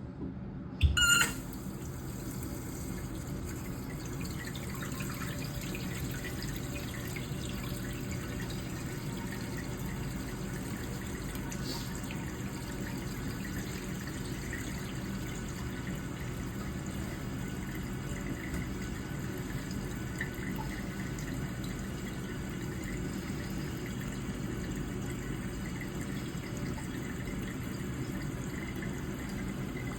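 Toilet cistern filling with water, a steady run of water, after a sharp metallic clink about a second in.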